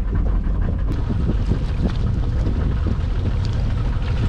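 Wind buffeting the microphone: a steady low rumble with a light rushing haze above it.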